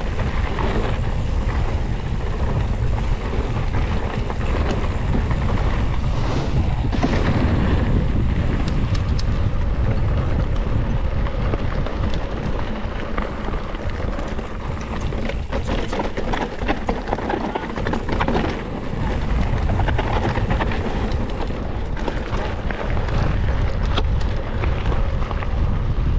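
Wind buffeting the microphone over the rattle and tyre noise of a cross-country mountain bike riding rough trail, with scattered sharp clicks and knocks.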